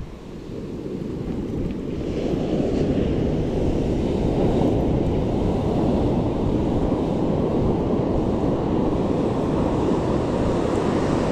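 Ocean surf rushing, mixed with wind buffeting the microphone, a steady low rush that swells up over the first two seconds.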